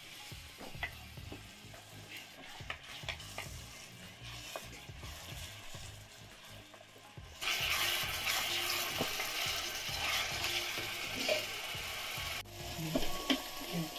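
Food frying in oil in a pan while being stirred, with light scraping clicks. About halfway through a louder sizzle starts suddenly and breaks off abruptly a few seconds later.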